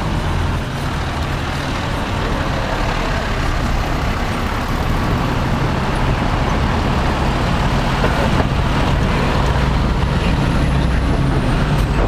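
Heavy truck engine running steadily and loud, a low hum under street noise.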